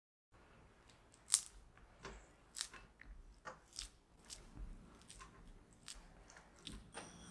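Silicone spatula pressing and mashing softened butter against the side of a glass bowl to soften it. There is a sharp tap about a second in, then irregular soft clicks and squishes.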